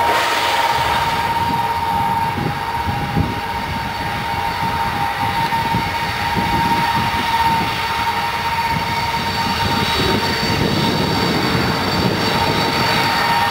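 Ilyushin Il-76TD's four Soloviev D-30KP turbofan engines running as the jet taxis and turns: a steady whine with a fainter, higher whistle over a low rumble.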